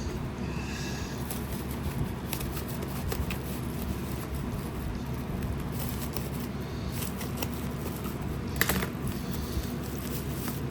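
Cardboard boxes and packing being handled over a steady low hum: scattered light clicks and rustles, with one sharper knock about eight and a half seconds in.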